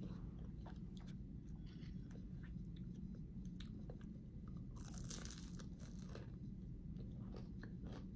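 Person biting into and chewing a canelé, its caramelized crust crunching in small irregular crackles, with a denser crunch about five seconds in.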